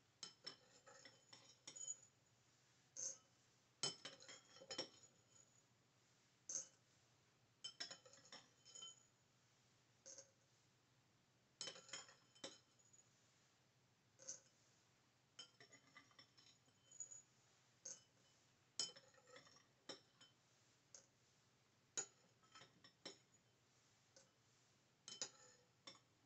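A metal spoon clinking against ceramic bowls as dried black beans are scooped from one bowl and tipped into the other: a string of light clinks and small rattles every second or two, with quiet gaps between.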